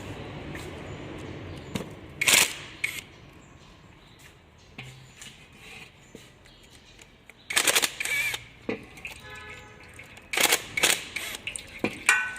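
Sharp clicks and knocks of hand tools working the bolts of an automatic transmission oil pan, coming singly and in pairs a few seconds apart.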